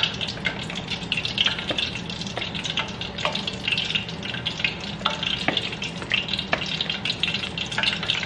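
Wooden spoon stirring and scraping churro dough in a mixing bowl as an egg is worked in, with short clicks and scrapes. Underneath, vegetable oil heating in a pan on the stove sizzles with a steady crackle, and a low hum runs throughout.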